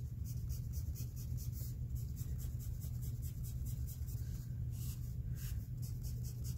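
Pencil scratching on paper: a line drawn, then a quick run of short strokes as a row of tick marks is sketched, several strokes a second, over a steady low hum.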